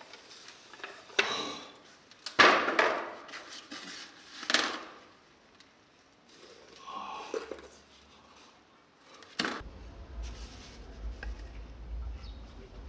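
A few separate knocks and scrapes of hard objects, the loudest about two and a half seconds in, then a low steady rumble from about three-quarters of the way through.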